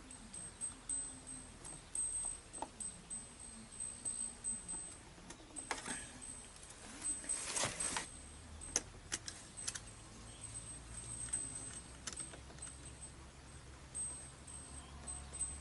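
Faint clicks and scrapes of a screwdriver turning small screws in a model steam boat's hull, with light knocks as the hull is handled.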